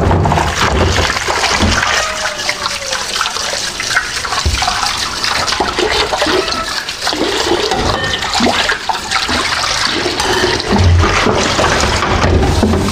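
Tap water running steadily into a stainless-steel kitchen sink during washing up, with scattered clinks and knocks of cookware, a wok among it.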